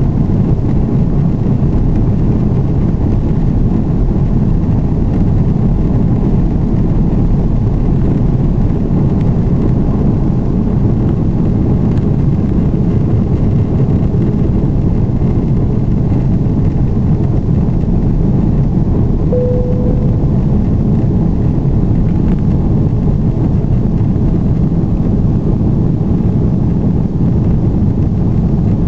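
Cabin noise of an Airbus A330-200 on takeoff, heard from a window seat behind the wing: the steady, loud, low rumble of the jet engines at takeoff thrust through the takeoff roll, liftoff and initial climb. A brief tone sounds about two-thirds of the way through.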